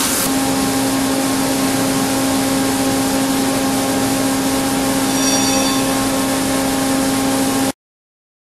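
Horizontal boring mill machining a large workpiece face with its facing head: a steady machine hum with a strong low tone over a hiss. A brief faint high ringing comes a little past halfway, and the sound cuts off suddenly near the end.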